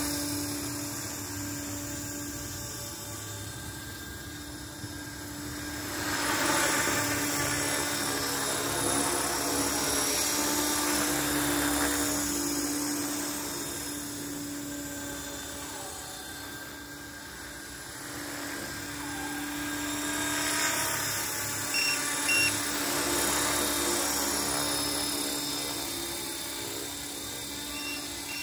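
Align T-Rex 450 electric RC helicopter flying, its motor and rotor whine steady in pitch but swelling and fading as it comes closer and moves away, loudest twice. A few short high beeps come in the last third.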